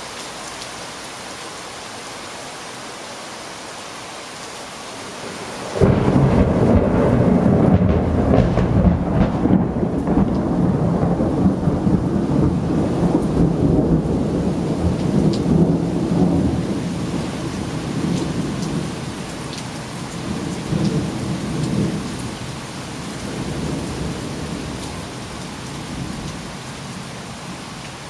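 Steady rain hissing, then about six seconds in a sudden loud clap of thunder that rumbles on for about fifteen seconds, fading with a few smaller swells, while the rain keeps falling.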